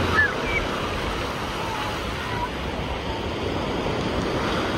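Ocean surf breaking and washing over the shallows in a steady rush.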